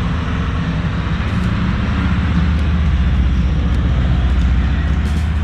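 Motorcycle engine idling steadily, a low, even running note.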